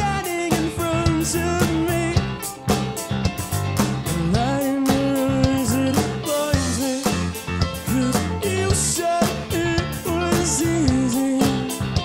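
Rock band playing live: electric guitars, bass and a drum kit keeping a steady beat, with a male lead vocal singing long held notes.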